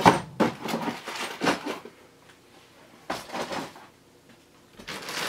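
A few sharp knocks and rustles of a small cardboard box being handled and set down on a table, the loudest knock right at the start, then a short quiet spell near the end.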